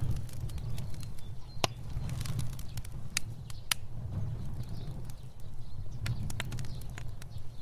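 Fire burning: a steady low rumble of flames with scattered sharp crackles and pops, a few louder ones standing out.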